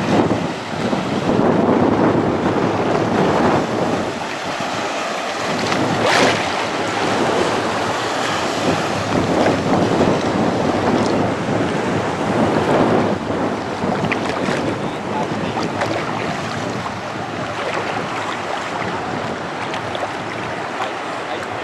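Sea surf washing on the shore, swelling and easing, with wind buffeting the microphone.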